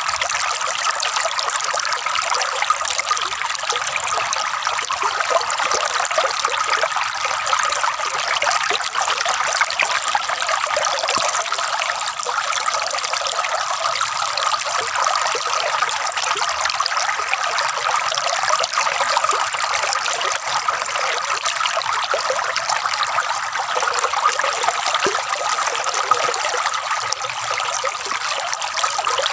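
Flowing water trickling and gurgling steadily, with no pauses and a dense fine bubbling texture.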